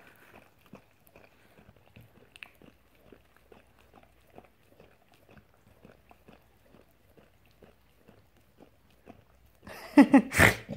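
A chow chow licking an ice cream cone, with soft wet licks about twice a second. Near the end a person's voice cuts in loudly.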